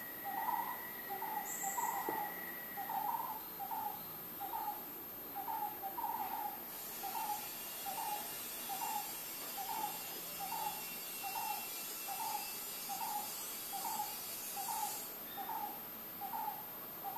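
A short hooting animal call repeated steadily, about three calls every two seconds.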